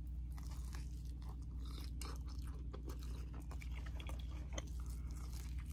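A person chewing a bite of deep-dish pizza: many small irregular clicks of chewing over a steady low hum.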